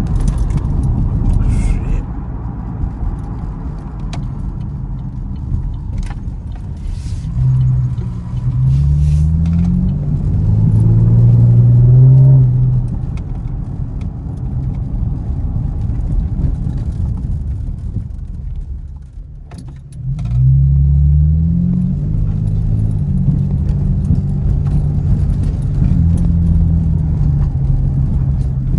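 Camaro engine and exhaust under way, running low and steady, then pulling hard about seven seconds in: the pitch climbs and steps through gear changes to a loud peak before easing off. After a brief quiet lull it accelerates again about twenty seconds in, rising through the gears once more.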